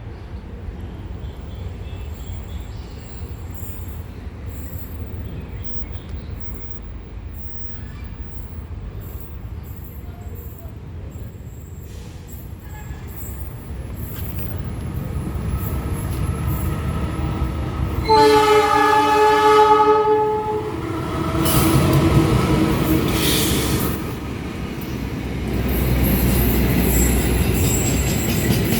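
Diesel locomotive rebuilt to CC 204 engine spec, coming closer with a steadily growing low engine rumble. About two-thirds of the way in it sounds its multi-tone horn once for about two seconds. Loud engine and rail noise follows, rising and falling.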